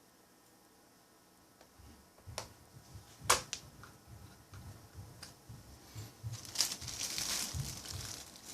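Small Phillips screwdriver driving screws into a laptop's plastic base, with clicks and taps of the screws and tool, one sharp click about three seconds in, and scratchy turning noise near the end.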